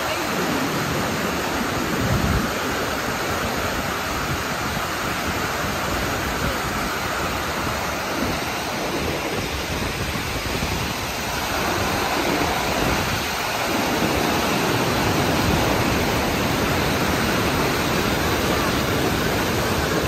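Loud, steady rush of a waterfall in high flow, heard close over the falls from a footbridge. It grows louder about halfway through, with a brief low thump about two seconds in.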